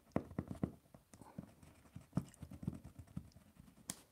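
A chunky coloured pencil tapping and rubbing on paper card on a tabletop while drawing circles: a run of light, irregular knocks, several a second.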